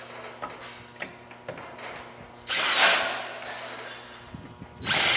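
Cordless drill boring pilot holes into plywood, two short bursts of drilling: one about two and a half seconds in, the other near the end.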